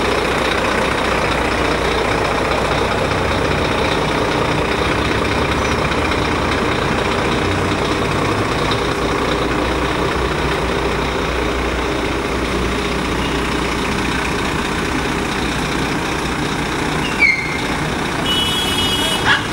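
Scania P400 fire engine's diesel engine idling steadily. Near the end there is a short falling squeal, then about a second of steady high-pitched tone.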